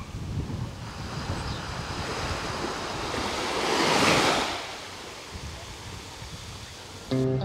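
Small sea waves on a calm sea washing onto the shore: one wave swells to a peak about four seconds in and draws back, with a low wind rumble on the microphone. Acoustic guitar music comes in just before the end.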